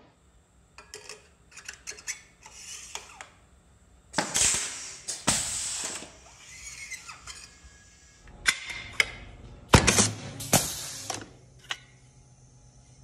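Multicyl TPM-DH double-horizontal punching units cycling, each stroke punching through both walls of a tube or extrusion: a series of sharp metallic clanks and clicks, with two louder stretches of clanking and hiss about four and ten seconds in.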